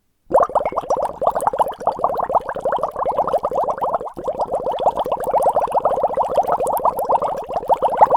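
Water bubbling fast: a rapid, continuous stream of bubbles, each a short rising blip, many a second. It starts abruptly a moment in and briefly thins a little before the middle.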